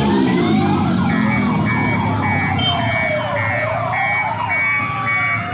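Several vehicle sirens wailing at once, their pitches rising and falling and crossing each other, with a repeated beeping tone about every half second from about a second in, over a steady low rumble of traffic.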